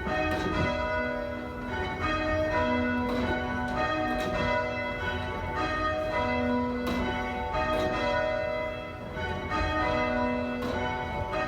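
Church tower bells change ringing: a ring of bells struck one after another in a steady, repeating sequence, the lowest bell sounding about every three and a half seconds.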